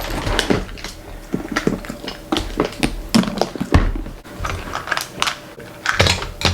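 Nail drill bits and nail supplies being handled, giving irregular clicks and small knocks.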